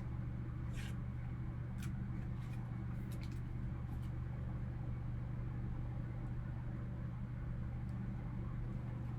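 Steady low hum of room tone, with a few faint rustles and clicks of trading cards being handled in the first few seconds.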